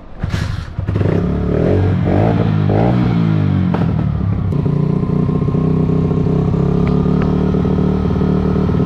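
Honda Fan's single-cylinder four-stroke engine restarted after stalling: it catches about a second in, revs unevenly for a few seconds, then settles into a steady idle on its freshly cleaned carburetor, with the idle still set a little high.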